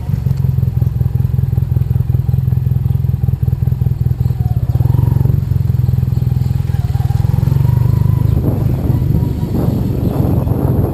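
Yamaha TDM 850 parallel-twin motorcycle engine running steadily at low revs while the bike rolls at walking pace. Rougher noise joins it in the last couple of seconds.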